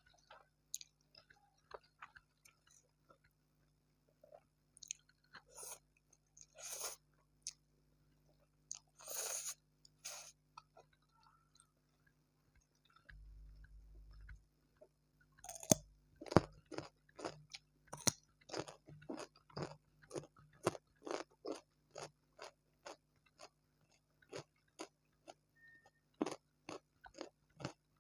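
Close-miked chewing of crunchy fried food, tempura with fried noodles: scattered bites and mouth sounds at first, then, from about halfway, steady crisp crunching at about two to three chews a second.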